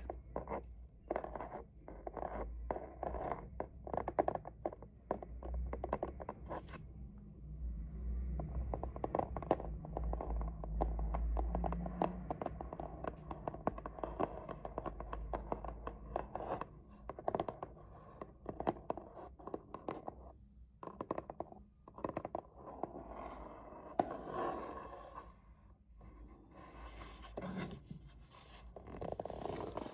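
Fingers and nails scratching and scraping over a plain cardboard box as it is handled, a dense run of irregular rasping strokes that pauses briefly about two-thirds of the way through.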